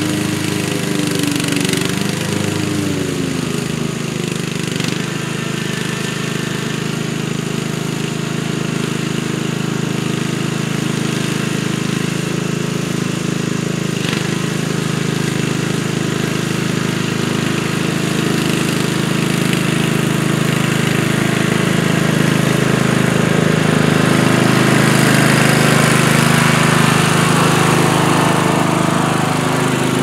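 Craftsman LT1000 riding lawn mower's engine running steadily while cutting grass, with a brief dip in pitch a couple of seconds in, and growing louder near the end as the mower comes closer.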